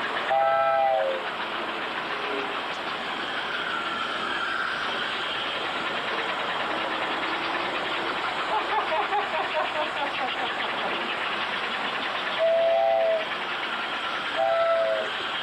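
American Flyer S-gauge model train running steadily around the track, with its built-in whistle blowing in short blasts: once just after the start and twice more near the end.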